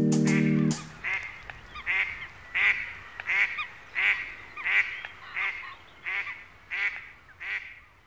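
The background music's last chord stops under a second in, then a duck quacks in a steady series, about one call every 0.7 seconds, the calls growing fainter toward the end.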